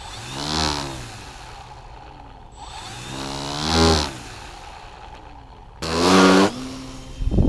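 E-Flite Valiant RC plane's electric motor and propeller buzzing through three low passes, each swelling and rising then falling in pitch as it goes by, about a second in, near four seconds and past six seconds. A rush of louder noise starts just before the end.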